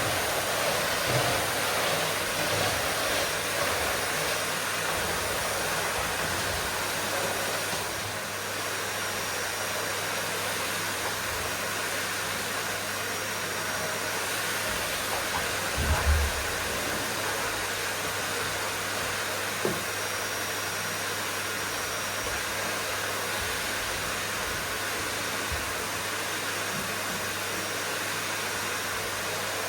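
Vacuum cleaner running steadily, an even hiss of rushing air over a low motor hum, with a few brief low bumps, the loudest about halfway through.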